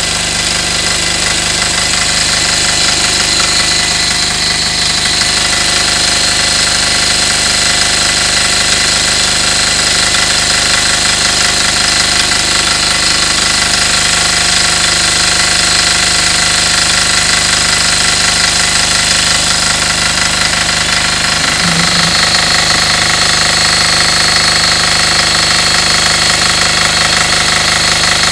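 Air-cooled Yanmar diesel engine of a small 1.5 kVA generator running steadily, just after being started.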